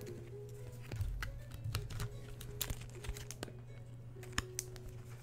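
Background hip-hop music with scattered light clicks and taps from trading cards and plastic being handled on the table.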